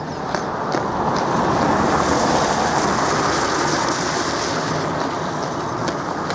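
A van passing close by on a wet road, its tyre hiss swelling to a peak a couple of seconds in and then easing off. Underneath, a draught horse's hooves clip-clop on the road as it pulls a horse tram, heard most clearly near the start and the end.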